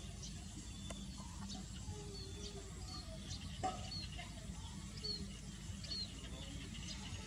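Faint outdoor birdsong: short high chirps repeating about once a second, with some lower clucking or warbling calls, and one brief knock about three and a half seconds in.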